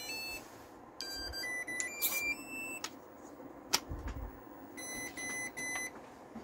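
RC electronic speed controller beeping: a short run of stepped tones about a second in, then four short evenly spaced beeps at one pitch near the end, with a single click in between. These are set-up or calibration signal tones.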